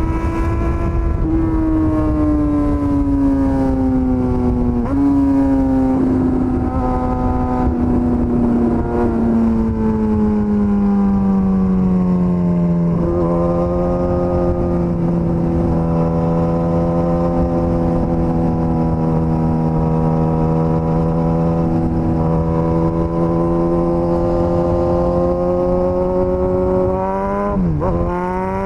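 Suzuki GSX-S1000 inline-four engine running under way, its note falling gradually for about twelve seconds with a couple of small jumps, then holding steady at a lower pitch. Near the end the pitch dips sharply and comes straight back up. A rushing noise runs underneath.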